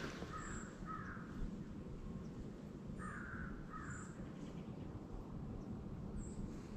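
Crow cawing: two caws within the first second, then two more about three to four seconds in, faint over quiet woodland background.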